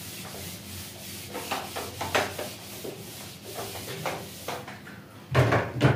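Handheld whiteboard eraser wiping across a whiteboard in a series of brisk rubbing strokes, with a louder stroke near the end.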